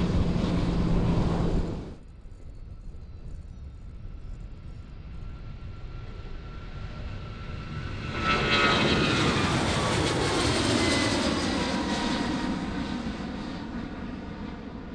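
A loud aircraft sound cuts off abruptly about two seconds in. Then a jet airliner's engine noise builds, swells sharply about eight seconds in with a whine that slides down in pitch as it passes, and slowly fades.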